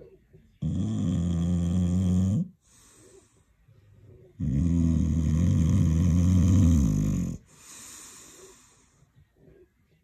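English bulldog snoring in its sleep: two long, loud snores a couple of seconds apart, each followed by a softer breathy breath.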